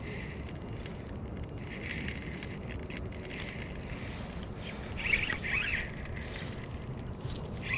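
Daiwa Crossfire spinning reel working against a hooked king salmon on braided line: short bursts of reel and drag noise, the loudest about five seconds in, over a steady low rumble.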